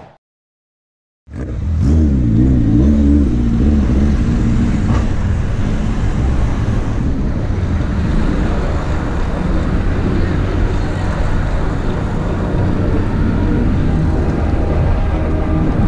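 Steady rumble of wind on an action-camera microphone while cycling along a city road, with road traffic mixed in. It begins suddenly about a second in, after silence.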